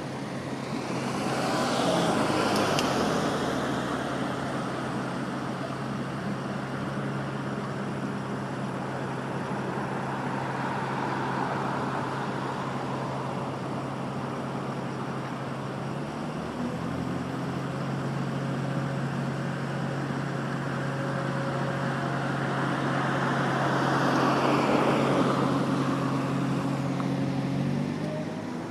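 A mobile crane's engine running steadily while hoisting a load, its pitch stepping up about halfway through. Traffic swells past twice, near the start and near the end.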